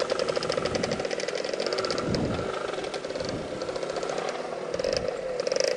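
Lambretta scooter's two-stroke single-cylinder engine running at low revs with a rapid, even firing beat, with a short low rumble about two seconds in.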